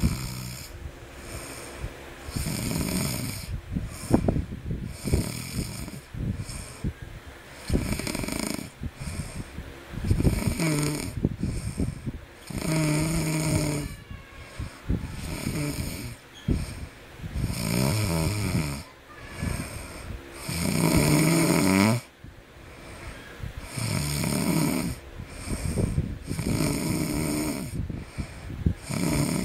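A baby snoring in a steady rhythm, one snore about every two to three seconds, several of them with a buzzing, pitched rattle.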